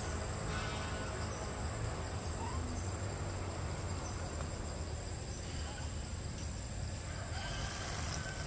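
Outdoor forest ambience: a steady thin high tone like a calling insect over a low rumble, with one or two faint short chirping calls.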